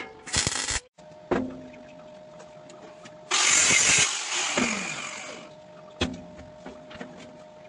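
MIG welder tacking steel plate: a short burst of crackling arc that cuts off abruptly, a metal clank, then a longer burst about three seconds in that fades out over a couple of seconds. A few more sharp clanks of the steel plates.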